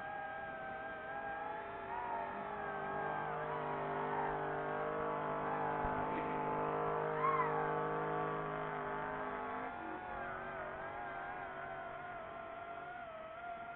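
High whine of a chase drone's propeller motors, wavering in pitch, with a steady lower engine note underneath from about two seconds in until about ten seconds in.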